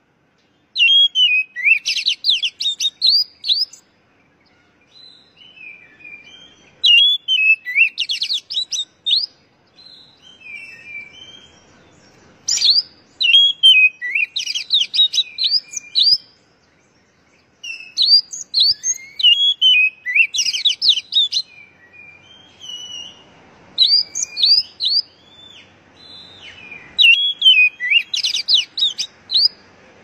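Oriental magpie-robin singing in full voice: six loud phrases of rapid, varied notes, each two to three seconds long, with softer notes between them.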